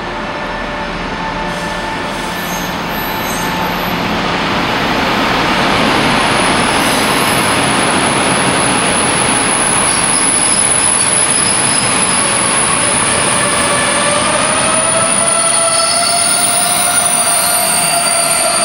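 Container freight train behind an MZ diesel-electric locomotive running past slowly as it pulls in to stop. The noise builds over the first several seconds as the locomotive goes by, then the wagons roll past with steady noise. From about two-thirds of the way through there is a wavering squeal from the wheels and brakes as the train slows.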